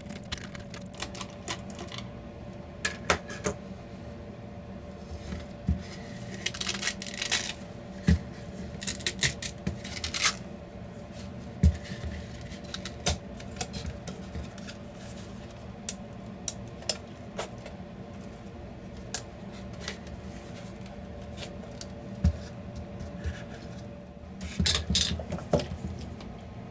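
Scattered clicks, taps and short scrapes of small tools and hard plastic parts being handled while a Bluetooth speaker is taken apart, with a cluster of quick clicks near the end. A faint steady hum runs underneath and stops shortly before the end.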